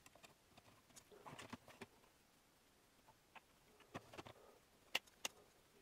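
Near silence with faint rustling and small clicks of a video cable and its connector being handled, then two sharper clicks close together near the end.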